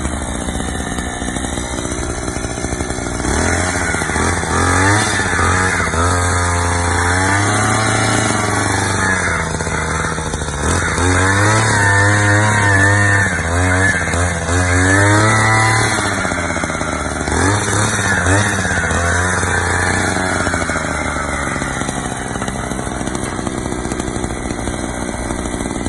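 Gasoline post-hole auger engine running, its revs rising and falling again and again as the bit drills into the soil, then settling back to a lower, steadier speed near the end.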